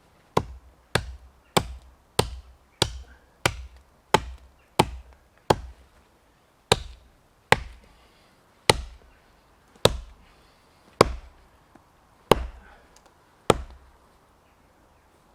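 Hultafors Hunter's Axe chopping into a standing tree trunk, about sixteen sharp strikes. They come quickly at first, a bit under two a second, then slow to about one a second and stop near the end. These are the last cuts of a felling notch, with the trunk nearly through.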